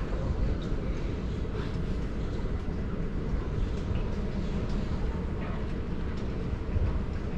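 Steady low rumble of an airport terminal's indoor ambience, heard while walking through a corridor, with a few faint light clicks.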